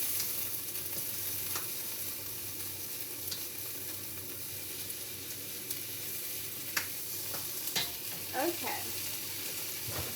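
Stir-fry vegetables sizzling steadily in a hot pan, with a few light clicks of a utensil against the pan as they are stirred.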